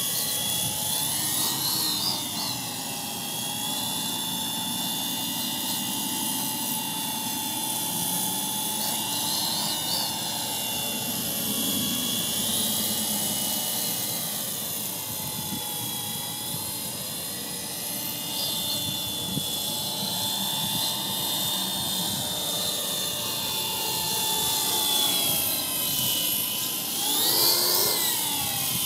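MJX F49 brushless RC helicopter's electric motor and rotor whining in flight, the pitch rising and falling as the throttle changes, with the sharpest swoop up and back down near the end. Wind buffets the microphone underneath.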